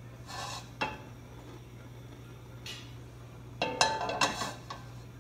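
Nonstick wok knocking and rattling on a gas stove's metal grate as it is gripped and moved, a couple of light knocks first and then a burst of clattering about three and a half seconds in. A steady low hum runs underneath.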